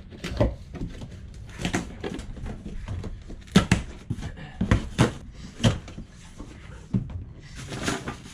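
Cardboard box being pulled apart and folded down around a new porcelain toilet as it is unpacked: a string of sharp knocks and thumps with cardboard scraping, and a stretch of rustling near the end.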